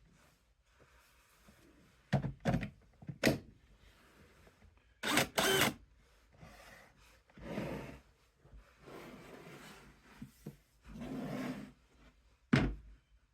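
Wooden workpieces being handled on a workbench: a few sharp knocks and thunks, one louder clatter, and several short scraping or rubbing strokes in between.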